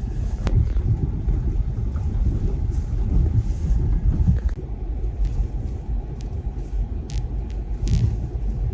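Steady low rumble of a car driving on a wet road, heard from inside the cabin, with a few short clicks.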